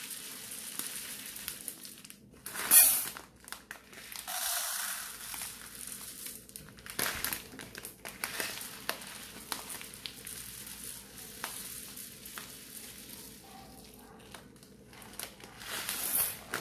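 Dry basmati rice pouring from its bag into a plastic measuring cup and tipped into an aluminium rice-cooker pot, a grainy hissing patter mixed with the rustle of the paper bag. The loudest moment comes about three seconds in.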